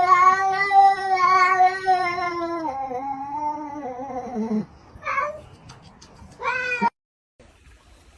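A domestic cat giving a long drawn-out yowl that slowly falls in pitch, then two short meows; the sound cuts off suddenly about seven seconds in.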